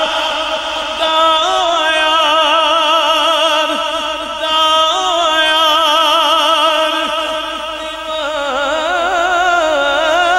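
A man's solo voice singing a Punjabi naat without words the recogniser could catch: long drawn-out, ornamented notes with a strong wavering vibrato. There are short breaks between phrases about four and eight seconds in.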